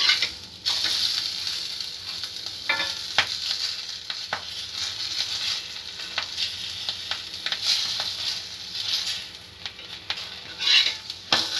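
A paratha sizzling in desi ghee on a hot tawa, a steady hiss with scattered sharp ticks as a metal spatula presses and scrapes it. The sizzle flares louder at the start and again about a second before the end.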